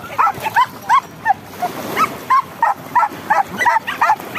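Small dog yipping over and over in short, high-pitched yaps, about three to four a second.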